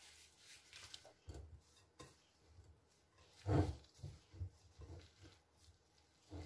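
Plastic-gloved hands squeezing and mixing sticky cooked rice with egg and grated cheese in a ceramic bowl: faint, irregular soft squishing and rustling, with a louder dull thump about three and a half seconds in.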